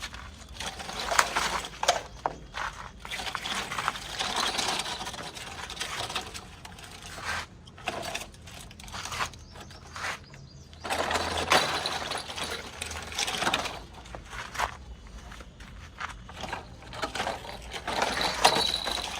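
Plastic toy truck rattling and scraping as it climbs over a course of steps, in irregular bursts with short pauses.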